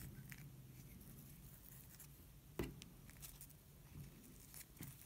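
Near silence with faint rustling and small ticks from hands winding craft string around a feather's base, and one light tap about two and a half seconds in.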